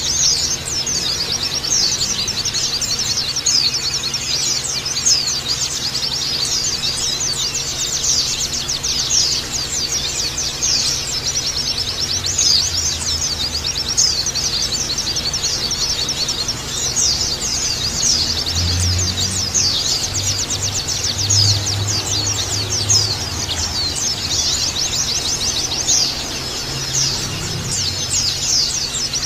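A crowd of pleci (white-eyes) chirping and twittering together, a dense and unbroken stream of high, thin, overlapping calls.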